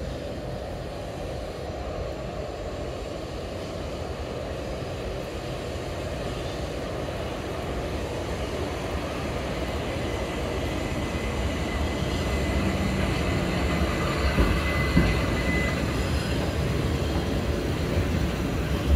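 Electric multiple-unit train running along the platform, its low rumble growing louder, with a thin high squeal for several seconds past the middle and a couple of knocks near the end.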